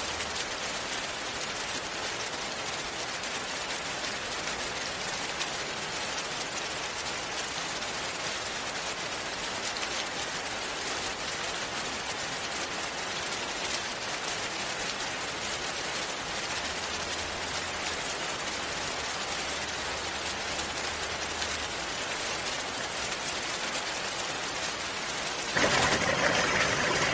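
Steady water ambience: an even, rain-like hiss of falling or running water. Near the end it grows louder and fuller.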